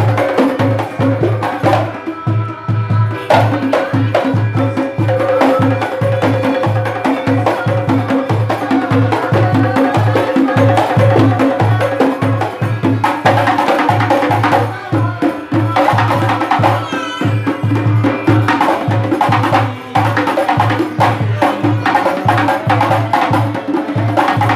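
Hadrah ensemble: several hand-held frame drums (rebana) beaten in an interlocking pattern over a steady repeating low drum stroke, with a man singing a devotional melody into a microphone.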